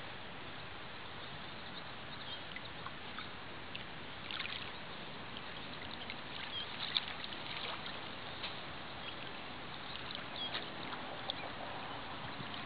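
Small waves lapping and washing in over a shallow lake shoreline, a steady wash with short watery plinks and gurgles scattered through it.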